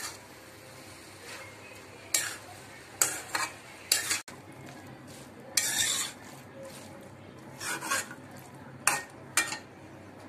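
A spatula scraping and stirring a shredded chicken and vegetable filling around a steel kadai, about seven irregular scrapes, over a faint steady sizzle.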